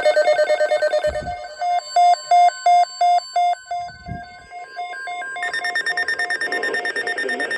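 Several NOAA weather radios sounding their alert beepers at once for a severe thunderstorm watch: overlapping electronic beeping in different patterns. Fast beeps give way to loud beeps about three a second, and a denser, steadier set of tones joins a little past five seconds in.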